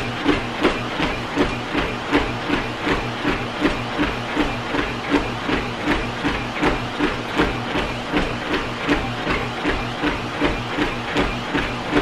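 Best Choice Products 800W folding electric treadmill running under a jogger: steady motor and belt hum beneath regular footfall thumps, nearly three a second. The thumps come from clunky weightlifting shoes striking the deck, which the runner blames for the noise; otherwise the machine is not very loud.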